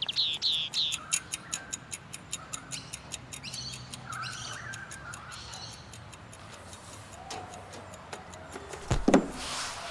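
Watch ticking, a run of regular ticks that thin out and fade over the first few seconds, with birds chirping. About nine seconds in comes a low thump with a short falling whoosh.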